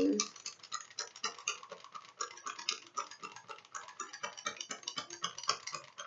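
Rapid, irregular light clicking and rustling of medical supplies and plastic packaging being handled with gloved hands.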